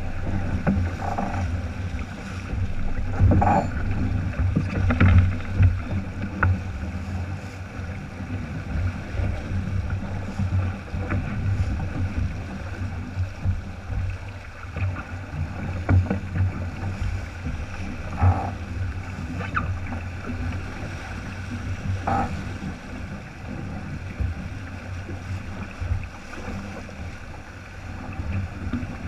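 Sailing yacht moving under sail: water rushing along the hull and wind buffeting the camera microphone as a steady, gusting low rumble. A few brief, faint sharper sounds come through now and then.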